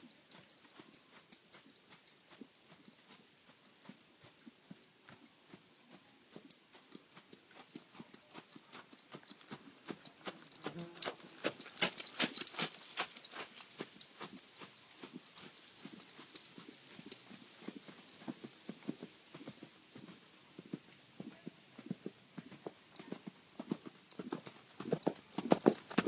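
Hoofbeats of a ridden Gypsy horse–Clydesdale cross gelding, a continuous run of footfalls that grows louder about ten seconds in and again near the end.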